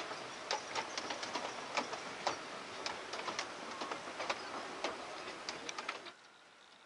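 A miniature railway train's wheels clicking irregularly over the rail joints and points of a 7¼ inch gauge track as it runs away, over a steady hiss. The sound cuts off abruptly about six seconds in.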